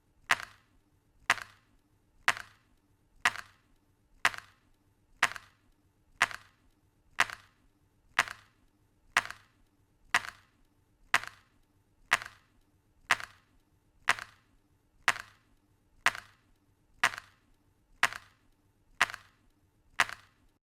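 Early-1900s clock ticking steadily, about one tick a second, each tick a sharp click with a softer click just after it.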